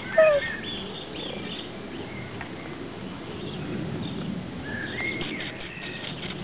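Small birds chirping and calling, in short gliding notes near the start and again about five seconds in, with a quick run of repeated high notes just after. One short, much louder sound stands out about a quarter second in.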